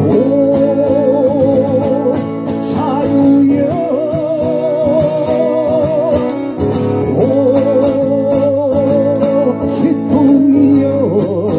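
Live song with acoustic guitar accompaniment under a melody of long held notes with a wavering vibrato, each about two seconds, with no words sung.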